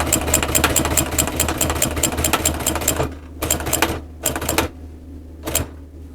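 Sewing machine stitching at speed, rapid even needle clicks over a steady motor hum, then stopping about three seconds in. A few short bursts of stitching follow as the seam is locked off.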